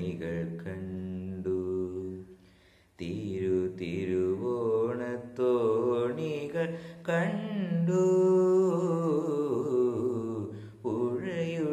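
A boy singing a Malayalam song solo, holding long notes with vibrato, with a short break for breath about two to three seconds in.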